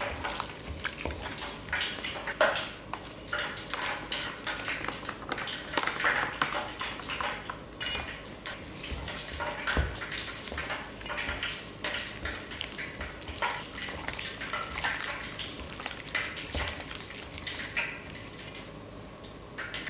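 Raw chicken drumsticks being mixed by a gloved hand in a stainless steel bowl, coated in marinade and flour. The drumsticks and hand knock and clink irregularly against the metal bowl.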